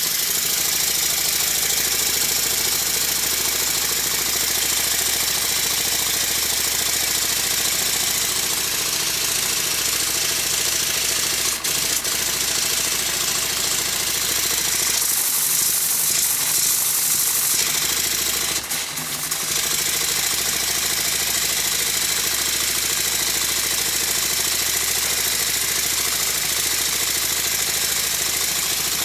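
Model Stuart triple expansion engine running steadily, with a constant exhaust hiss and the rattle of its working parts. It is being run to test the newly sealed exhaust manifold and cladding for leaks, and it holds without leaking. About halfway through, a louder hiss lasts a couple of seconds.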